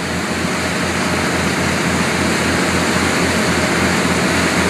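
Boat running at speed: a steady loud rush of wind, wake water and engine noise.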